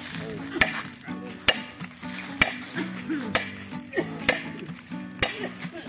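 Hammer blows driving hot iron pegs into an agarwood trunk to inoculate it, about once a second, with sizzling between the strikes as the hot metal burns into the wood.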